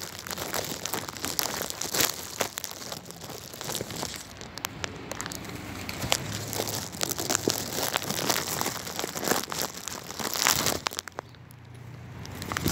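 A flock of feral pigeons feeding and flapping close by, heard as a busy rustling and crinkling full of sharp clicks and wing flaps, easing off briefly near the end.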